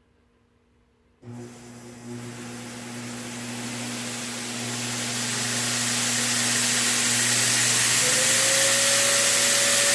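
A 2x72 belt grinder starts about a second in and speeds up gradually. It gets steadily louder, with a steady motor hum under a growing rush of belt and air noise. A higher steady whine joins near the end.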